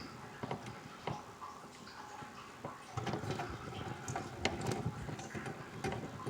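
Scattered light clicks, taps and scraping from hands and tools working on the metal mounting rail and bolts of a furnace control board.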